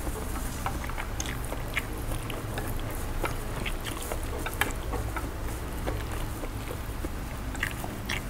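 Close-up eating sounds: a person chewing spicy noodles and rice cakes, with scattered small clicks of wooden chopsticks against a glass dish and one sharper tap about halfway through, over a steady low hum.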